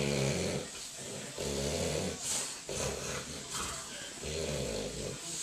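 A man snoring loudly, with one long snore about every second and a half.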